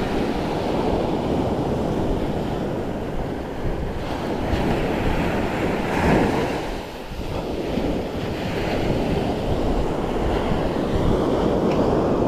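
Sea waves washing onto the shore, with wind buffeting the microphone. The surf swells about six seconds in, then briefly eases.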